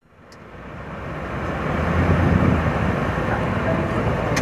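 Vehicle engine idling with a steady low rumble and outdoor crowd haze, fading in over the first two seconds; a sharp click near the end.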